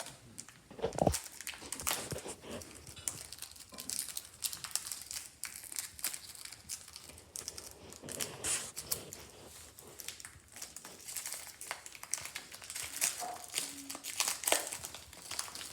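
Foil Pokémon card booster pack crinkling and crackling as it is handled and opened, in irregular bursts.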